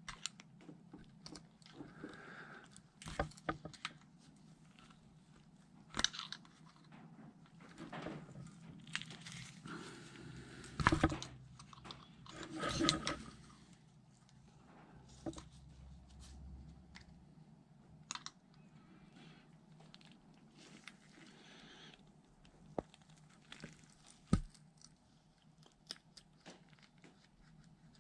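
Small metal hook tool scraping and clicking inside a hydraulic cab latch housing as it works at an O-ring in its groove. It comes as short scratchy scrapes and scattered sharp clicks, busiest and loudest a little before halfway through.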